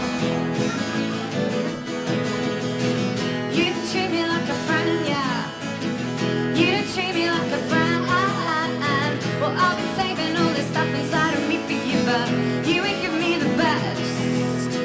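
A woman singing a song, accompanied by her own strummed acoustic guitar.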